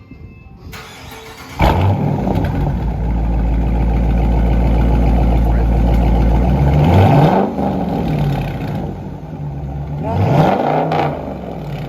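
2020 Dodge Charger R/T's 5.7-litre HEMI V8 with its mid muffler (resonator) deleted, rear mufflers kept. It starts up about a second and a half in, settles to a deep steady idle, then is revved twice, each rev rising and falling back. The exhaust is louder and deeper with the resonators removed.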